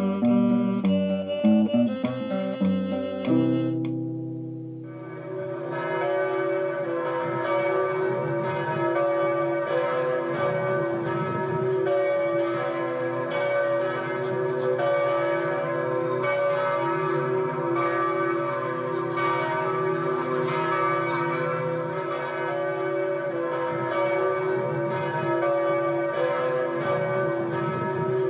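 A short phrase of instrumental music ends about four seconds in. Then church bells ring continuously in a dense, many-toned peal.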